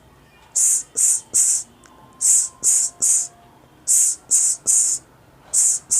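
A man making short, hissed 's' sounds through the mouth in quick sets of three, about four sets in all. This is a speech-therapy drill for nasal speech, pushing the air out through the mouth rather than the nose.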